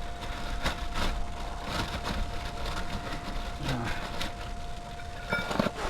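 Scattered light clicks and knocks of brake parts being handled at a van's rear hub, over a low steady rumble and a faint steady hum.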